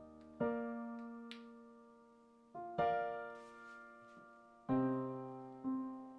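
Background piano music: slow chords struck every second or two, each ringing out and fading before the next.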